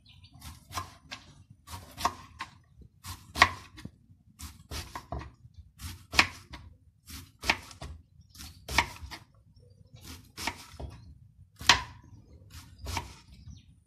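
Kitchen knife dicing an onion on a plastic cutting board: uneven knocks of the blade on the board, a sharper one roughly every second or so with lighter cuts between.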